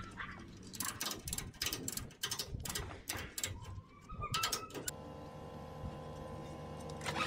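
Ratchet strap being cranked tight to hold down a side-by-side, a run of sharp ratchet clicks about three a second. About five seconds in the clicking gives way to a steady hum.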